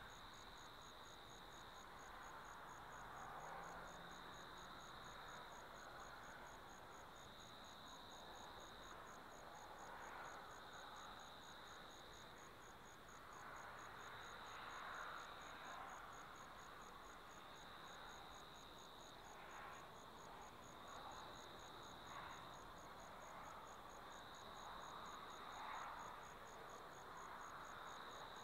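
Faint night insects, crickets, calling: one keeps up a steady, evenly pulsed high trill while a second, lower trill comes in spells of about a second and a half every three and a half seconds. A soft, even background hiss with a few gentle swells lies underneath.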